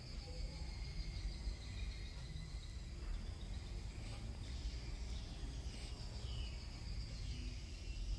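Faint steady background chirring of insects, a continuous high-pitched trill, over a low rumble.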